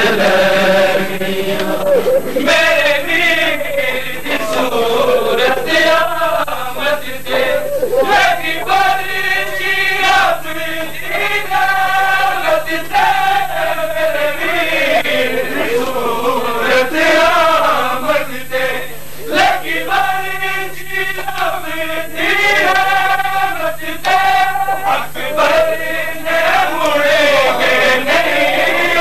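Men's voices chanting a noha, a Shia mourning lament, in long wavering sung lines, with a steady low hum underneath.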